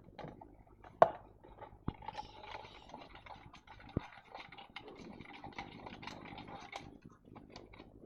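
Hands handling slime-making containers and utensils: a sharp knock about a second in, two lighter knocks, and scratchy scraping and rustling between them.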